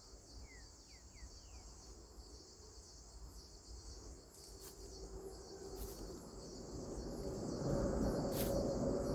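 Steady high-pitched chirring of a cricket-like insect chorus, with a few quick falling bird chirps in the first second or so. Near the end a broad rushing noise swells and becomes the loudest sound.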